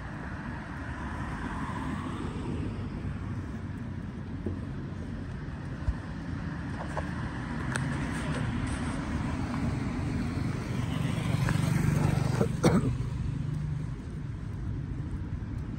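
Cars driving past on a street, one passing close and growing loudest about three-quarters through, its pitch falling as it goes by, with a sharp click just after.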